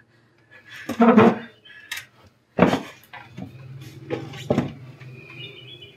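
Knocks and clatter from a scuffle at a tea table: wooden chairs bumping and a teapot and cups rattling on a glass tabletop, with a short cry about a second in and a few sharp knocks after.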